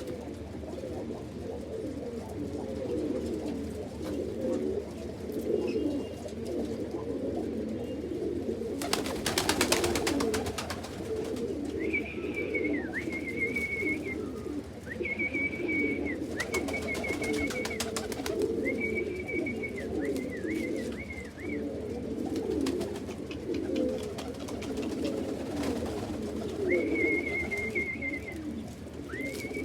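Domestic pigeons cooing continuously in a loft, several birds overlapping in a low rippling murmur. A burst of sharp clatter comes about nine seconds in, and from about twelve seconds on a thin, high whistling note sounds on and off over the cooing.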